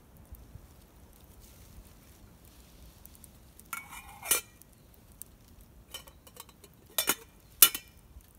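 Small metal items clinking: a ringing metal scrape about four seconds in, then a few sharp clinks near the end, typical of a metal tin and camp cookware being handled.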